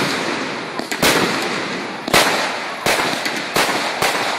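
Aerial fireworks bursting in a rapid series of sharp bangs, about one a second and coming a little faster near the end, with a steady hiss between them.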